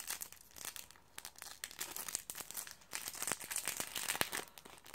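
Small clear plastic jewelry bag crinkling and crackling in the hands in irregular rustles as a ring is worked out of it.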